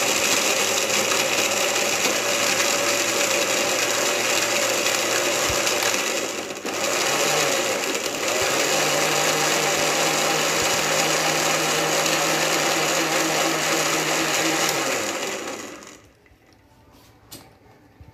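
Countertop electric blender running, churning milk, chocolate and crushed ice into a shake; the motor dips briefly about six and a half seconds in, runs on steadily, then switches off near the end, followed by a couple of light clicks.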